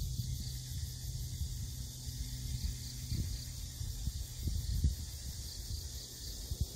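A steady, high-pitched insect chorus with a faint regular pulsing, over an irregular low rumble of wind on the microphone.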